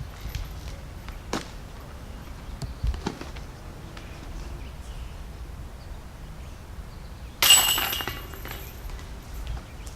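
A sharp metallic strike about seven and a half seconds in, ringing briefly at a few high pitches, with a couple of lighter knocks earlier over steady outdoor background noise.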